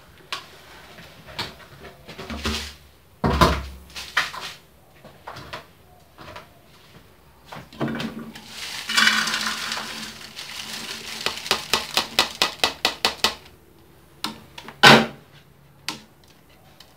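A wok and its glass lid being handled on a gas stove: clattering knocks, a rattling stretch midway that turns into a quick run of ticks, and one sharp knock near the end.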